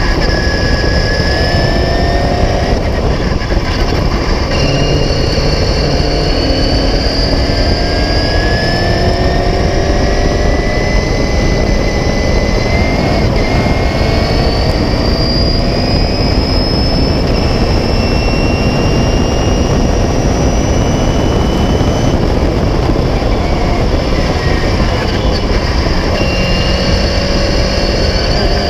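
Onboard sound of a 1976 Beagle Mk4 clubmans racing car at racing speed: the engine note climbs slowly through each gear and drops back at a few gear changes, over a loud rush of wind and road noise in the open cockpit.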